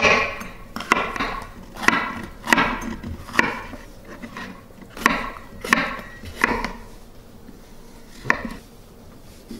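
RIGSTYLE 8-inch chef knife slicing bell peppers on a wooden cutting board: a slow run of sharp knocks of the blade on the board, about one every half second to a second. The knocks stop about two-thirds of the way through, with one more near the end.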